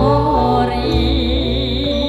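Javanese gamelan playing a slow tayub gending: a sung vocal line with a wavering, ornamented pitch ends under a second in, over steady ringing metallophone notes and regular low beats.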